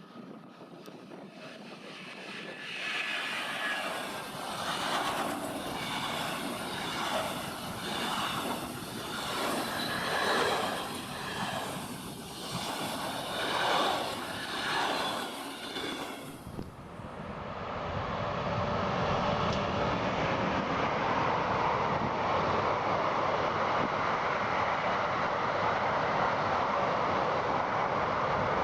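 Train rolling past, its sound swelling and pulsing in a regular rhythm with a steady high ring over it. About 17 seconds in, it cuts abruptly to a steady, even rolling rumble of a train.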